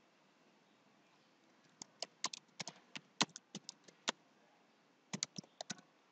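Typing on a computer keyboard: a quick run of keystrokes, a pause of about a second, then a shorter second run.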